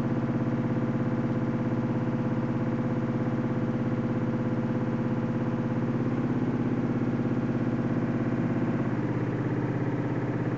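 A steady low mechanical drone with a fast, even pulse, like an engine or motor running at a constant speed.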